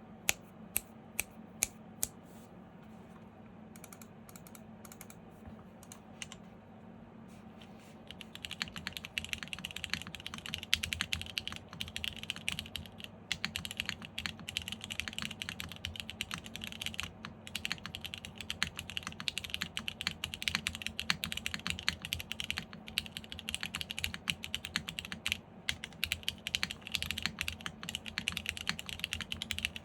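Custom mechanical keyboard with lubed Cherry MX Black Hyperglide linear switches on a polycarbonate plate, with PBT keycaps, being typed on. A few separate keystrokes come first, then steady fast typing from about eight seconds in, over a faint steady hum.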